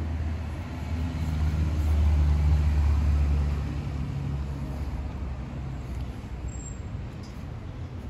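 Low engine rumble of a passing road vehicle, swelling about two seconds in and easing off after about four seconds, over steady street traffic noise.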